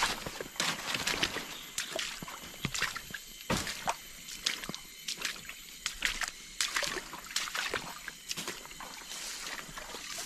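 Shallow forest stream trickling and sloshing over stones and leaf litter, with irregular crackles and taps throughout.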